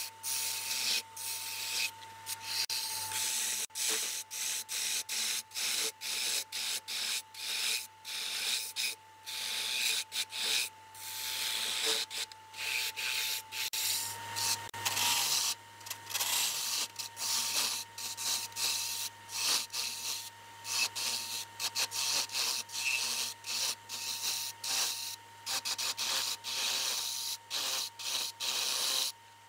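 Turning tool cutting wood spinning on a lathe, a scratchy scraping in many short strokes with brief breaks as the tool comes off the wood. A steady thin whine from the lathe runs under it.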